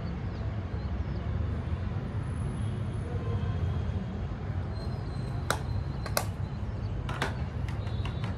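Steady low rumble of traffic noise, with a few sharp clicks a little past the middle from makeup compacts and cases being handled.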